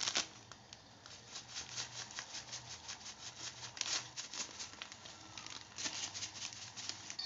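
Strawberry jelly powder poured from a plastic packet into a steel pot of heating water, then a metal spoon stirring and scraping against the pot. Quick, light, irregular ticks and scrapes come in clusters, over a faint low hum.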